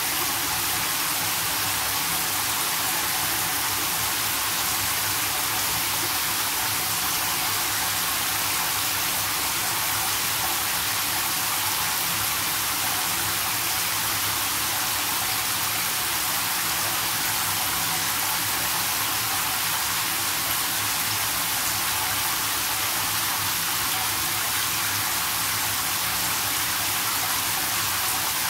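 Water spraying steadily from a handheld shower head into a bathtub, an even hiss of falling water.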